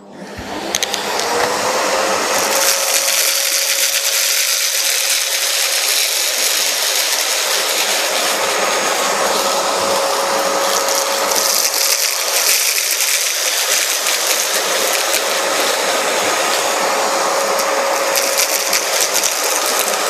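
VITEK VT-1835 bagless cyclone canister vacuum cleaner switched on, its motor spinning up over the first second or two. It then runs steadily with a loud rushing hiss and a steady whine, while the floor brush sucks up scattered grains, with bursts of crackling as they rattle up the tube.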